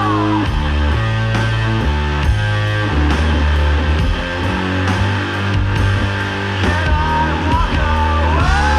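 Doom/sludge metal music: a slow, heavy distorted guitar riff in long low notes over drums. A high sliding guitar tone falls away at the start and rises again near the end.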